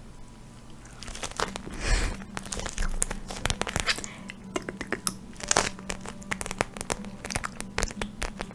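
ASMR pad handled close to the microphone: dense crinkling and crackling full of quick sharp clicks, starting about a second in.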